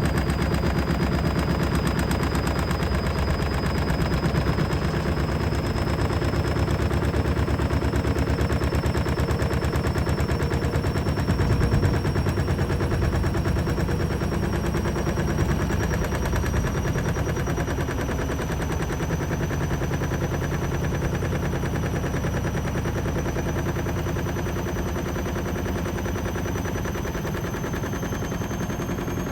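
Beko washing machine spinning fast with a rapid, continuous rattle and a motor whine that climbs slowly in pitch as the drum speeds up.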